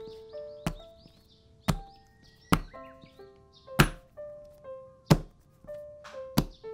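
Bread dough being slammed down onto a silicone baking mat: six heavy thuds about a second apart. A gentle melodic music track plays underneath.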